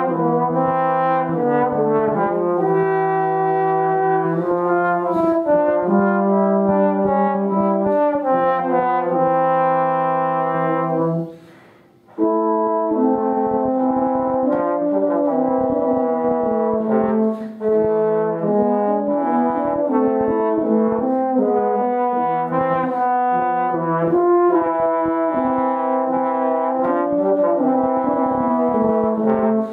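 Trombone and a second brass instrument playing a duet, each on its own melodic line. The playing stops for about a second a little before halfway, then both come back in.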